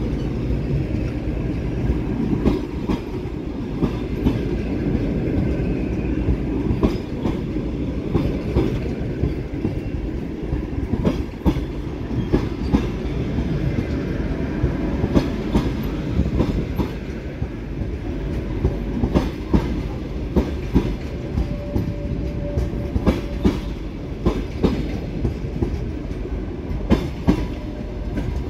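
Passenger coaches of a departing train rolling past, with a steady rumble and the wheels clacking irregularly over the rail joints.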